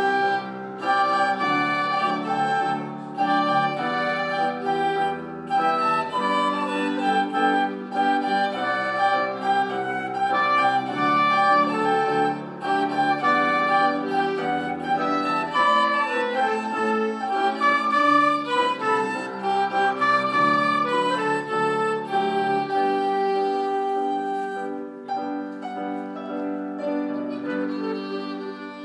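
A small ensemble of piano, flute, violin and a second woodwind playing a piece together, with the violin and flute carrying melodic lines over the piano. The music grows softer in the last few seconds.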